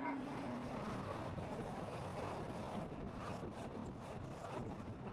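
Steady rushing road and wind noise of a car driving, heard from inside the cabin, with faint light taps in the second half.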